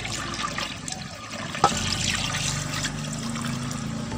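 Meat broth being poured from a large vessel into a pot of beef trotters and shank pieces, a steady splashing pour. One sharp knock sounds about a second and a half in.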